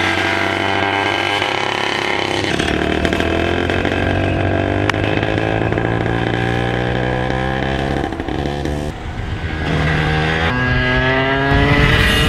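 Several small two-stroke go-kart engines running and revving, their pitch shifting a few times and climbing near the end.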